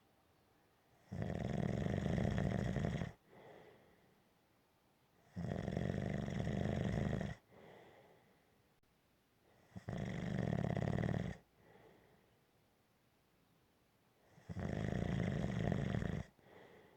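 Snoring in a slow, even rhythm: four long snores of about two seconds each, coming roughly every four and a half seconds, each followed by a short, much fainter breath.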